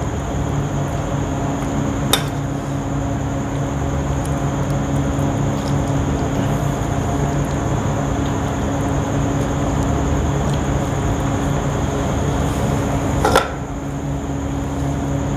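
Metal spoon scooping boiled chickpeas out of a clay pot into an enamel bowl, with two sharp clinks, a light one about two seconds in and a louder, ringing one near the end, over a steady background hum.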